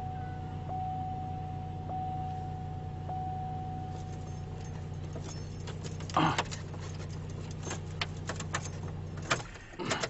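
A car's warning chime repeating about once a second over a steady low hum, then clicking and rattling of a key being worked in the ignition lock. The hum cuts off about nine seconds in. The ignition switch is sticking and will not release the key.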